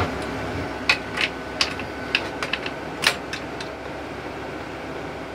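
About eight sharp clicks over two and a half seconds from a torque wrench being seated on and pulled against a bench torque tester. A steady fan hum runs underneath.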